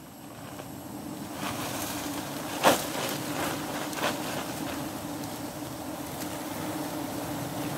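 A swarm of wild honeybees buzzing steadily around their open comb, swelling over the first couple of seconds as the bees are stirred up by smoke and take flight. A sharp knock sounds about a third of the way in.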